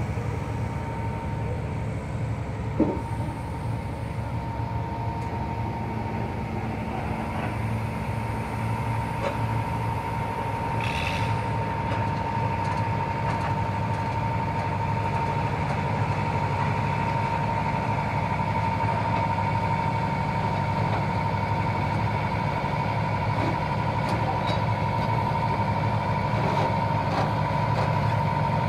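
Caterpillar excavator's diesel engine running steadily, a low hum with a thin steady whine above it.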